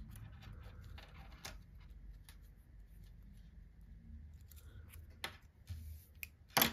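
Small scissors snipping off yarn tails on a crocheted amigurumi piece: a few light clicks of the blades, then a sharper knock near the end.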